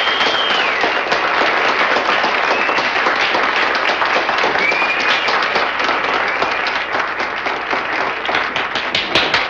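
Audience applauding, with a few high whistles that slide down in pitch; near the end the applause thins into scattered separate claps.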